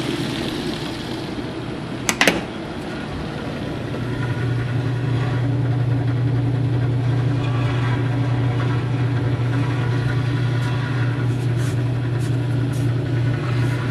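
Antique General Electric belt-drive refrigerator's electric motor and belt-driven compressor running with a steady hum, the hum growing louder about four seconds in. A brief clatter about two seconds in.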